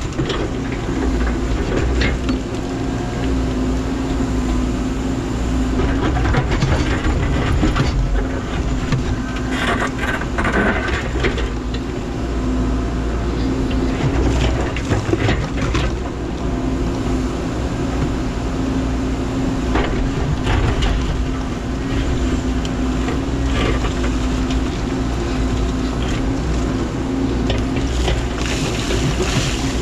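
Menzi Muck spider excavator's diesel engine running steadily with a held hum, with knocks and scrapes of stones being handled now and then.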